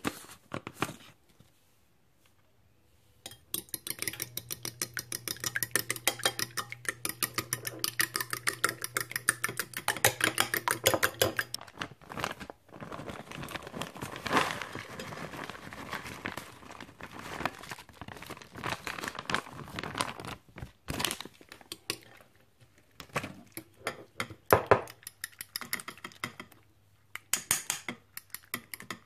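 A metal fork beating eggs in a ceramic bowl: a quick, even clicking of the fork against the bowl for several seconds. This is followed by the rustle of a plastic shredded-cheese bag as cheese is tipped in. Near the end come slower, scattered clinks and scrapes as the fork stirs the mix.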